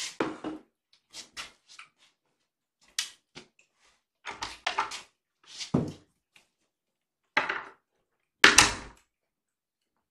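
Scattered short knocks, scrapes and rustles of a person moving about and handling things, the loudest about eight and a half seconds in.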